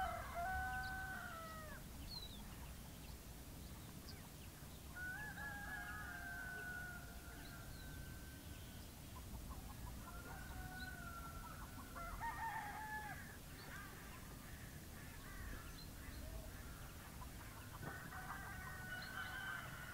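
Roosters crowing again and again, long drawn-out crows every few seconds, faint over a low steady rumble.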